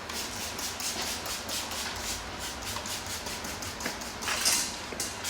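Wet sandpaper, 2000 grit on a hand sanding pad, rubbed back and forth across a painted fender's clear coat in quick strokes: a rhythmic rasping hiss of about four strokes a second, one louder stroke near the end. This is the fine wet-sanding stage that takes out the coarser 1000 and 1500 grit scratches.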